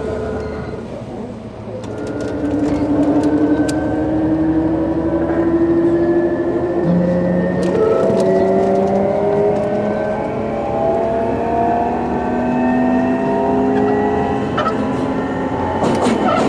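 Hitachi GTO VVVF inverter and traction motors of a Sotetsu New 7000 series car, heard from inside, whining in several tones that start about two seconds in and climb slowly in pitch as the train accelerates, with a sudden shift in the tones about seven seconds in. A few clicks and a short rush of noise near the end come over the running sound.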